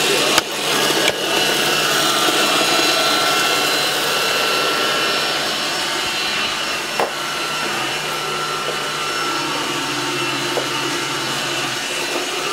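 Xrobot XR 510C robot vacuum cleaner running: a steady motor and brush whir, with two short knocks in the first second or so and another about seven seconds in.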